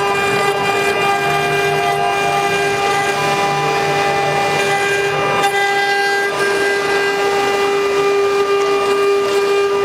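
Spindle of a 9018 desktop CNC router running steadily while its tapered engraving bit carves a relief into wood: a steady high whine with cutting noise on top. The cutting sound shifts slightly about halfway through, as the bit's path changes.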